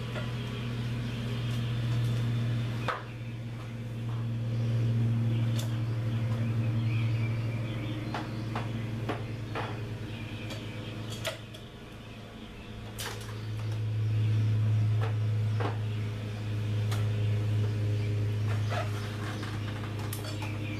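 A steady low hum that swells and fades, with scattered light clicks and knocks from a steel hose reel being handled and lifted up a stepladder.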